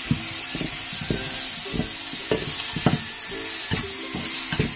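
Chopped tomatoes sizzling in oil in a frying pan while a metal slotted spatula stirs them, scraping and knocking against the pan about twice a second.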